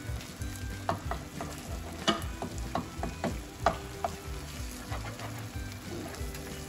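Silicone spatula stirring and scraping eggs and tomato sauce in a nonstick frying pan, over the sizzle of the food frying. A run of short clicks and taps of the spatula against the pan comes between about one and four seconds in.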